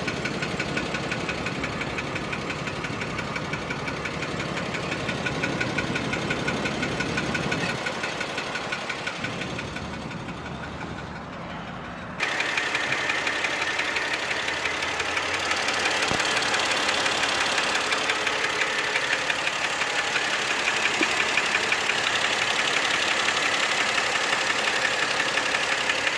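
Mercedes-Benz M112 V6 engine running with a fast, regular knock that keeps time with the engine. About twelve seconds in, the sound suddenly becomes louder and brighter.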